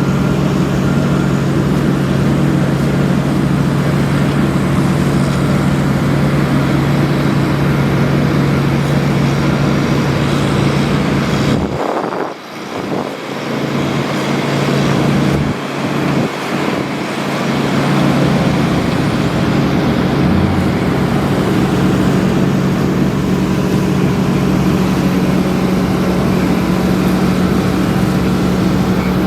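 Heavy road-construction machinery at an asphalt paving job, its engine running steadily with a low hum. The low part of the hum drops out briefly twice, a little under halfway through.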